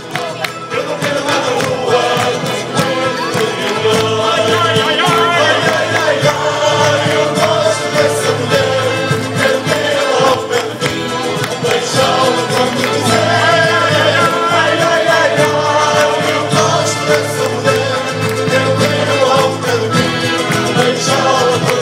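A group of men singing a folk song together in chorus, accompanied by strummed and plucked guitars and mandolin-type string instruments and an accordion, played live.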